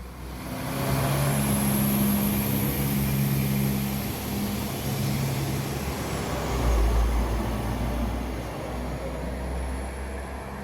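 A train running at the station, building up over the first second into a steady engine hum with a low rumble and a thin high whine, loudest about seven seconds in and easing off toward the end.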